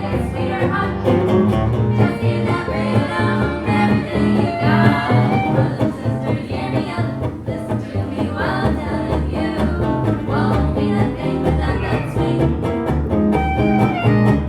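A small live band playing a country-style tune, with a bass line under guitar.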